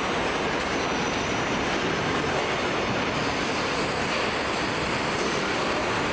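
Steady, even factory-floor noise of a truck assembly line, with conveyors and machinery running.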